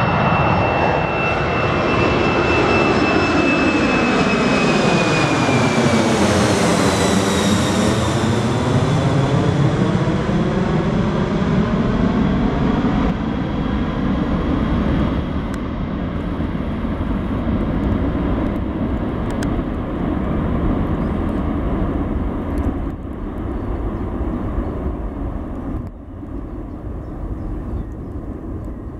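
Jet engines of a four-engined Boeing 747 at climb power as it passes low overhead just after take-off. Loud jet noise with a high whine that drops in pitch as it goes over, about six seconds in, then a slowly fading rumble as it climbs away.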